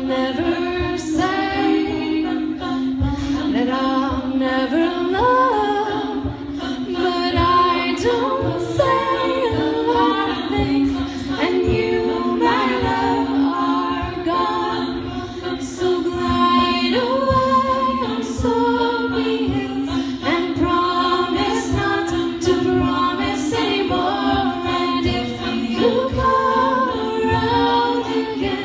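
A cappella vocal group singing in harmony, the upper voices moving over a steady held low note.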